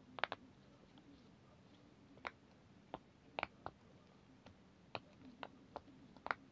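A rainbow silicone pop-it fidget toy's bubbles being pressed in, giving about a dozen sharp little pops at irregular spacing, some in quick pairs.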